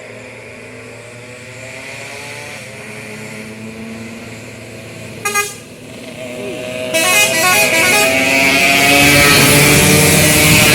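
Heavy diesel vehicle climbing toward the listener, its engine note slowly rising. A short double horn blast comes about five seconds in, and the engine grows loud from about seven seconds as it passes close.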